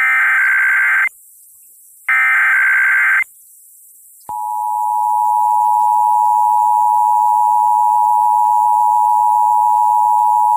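Emergency Alert System test received over FM radio: two one-second bursts of the SAME digital header's warbling data tones, a second apart, then about four seconds in the steady two-tone EAS attention signal starts and holds.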